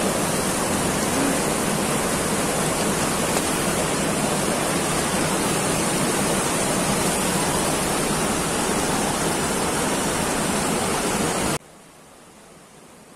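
Fast mountain river rushing over rocks, a loud steady roar of water. It cuts off suddenly near the end, leaving only a faint hiss.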